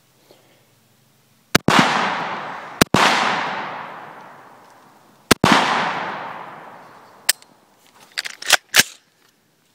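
Three shots from a semi-automatic .223 Wylde rifle, about a second and then two and a half seconds apart, each followed by a long rolling echo that fades over a couple of seconds. Near the end come several sharp metallic clacks of the action being worked by hand after the rifle failed to cycle.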